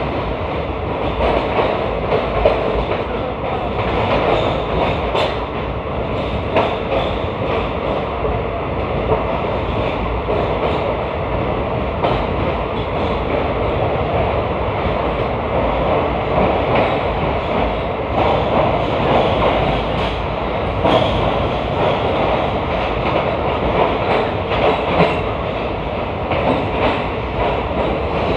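Wheels of an Indian Railways ICF passenger coach rolling over the track: a steady rolling rattle with scattered clacks over the rail joints.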